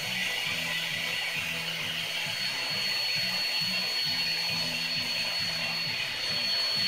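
Electric air blower running steadily, inflating a vinyl inflatable whale: a rushing of air with a thin high whine over it.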